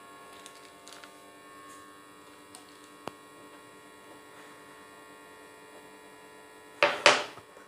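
Steady electrical hum with a few faint small clicks and one sharp click about three seconds in. Near the end comes a short, loud burst of noise.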